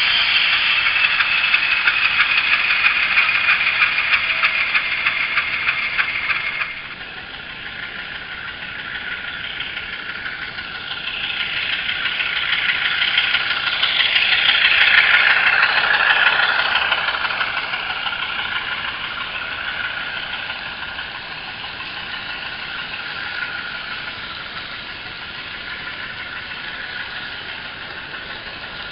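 ESU LokSound decoder in an HO scale GE U28C model playing diesel locomotive engine sounds through its small onboard speaker. A steady high tone over the engine sound cuts off about seven seconds in. The engine sound then swells up and back down again.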